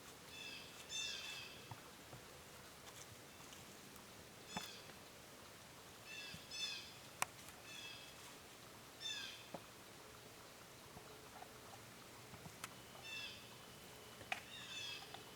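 Short, harsh animal calls in bunches of a few notes, about eight clusters, faint, with a few scattered sharp clicks.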